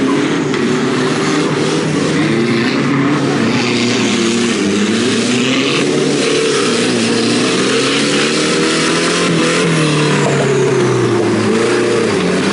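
Off-road 4x4's engine revving under load as it works through mud, its pitch rising and falling repeatedly.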